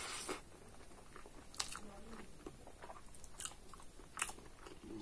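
Close-miked chewing of a mouthful of rice eaten by hand: soft wet mouth smacks with a few sharper clicks, after a short hissy intake at the start.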